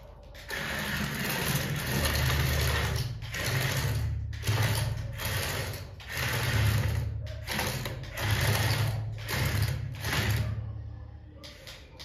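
Toy excavator's small geared electric motors whirring as it drives and moves its digging arm, running in about six stop-start spurts of one to two seconds each, then falling quiet near the end.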